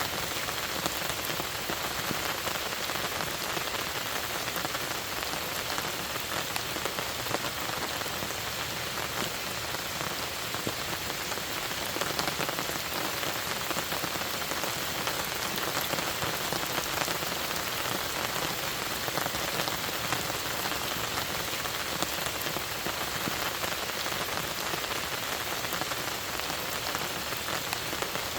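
Steady rain falling: an even hiss made of countless small drop impacts, unchanging throughout.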